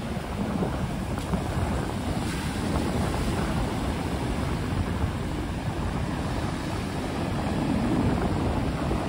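North Sea surf breaking and washing in foam up a pebble beach, with gusting wind buffeting the microphone as a low rumble.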